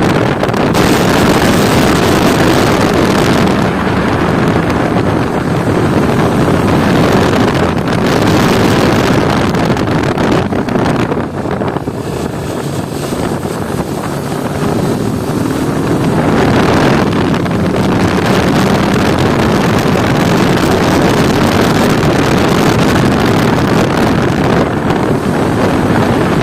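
Motorcycle engine running at road speed under heavy wind rush on the rider's microphone. The sound eases briefly about eleven seconds in, then builds again.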